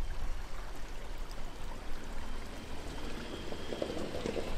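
Shallow stream running over stones, with a steady low rumble underneath.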